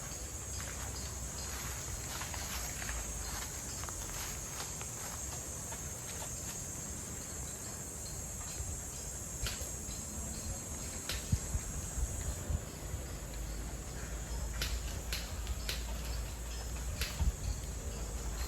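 Steady high-pitched insect trill, like crickets, that drops off about twelve seconds in, with a scatter of sharp clicks in the second half and a low rumble underneath.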